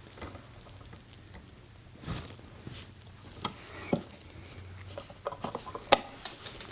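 Wire strippers clamping onto an electrical wire and pulling the insulation off, a handful of sharp clicks and snaps among quieter rubbing and handling of the wire.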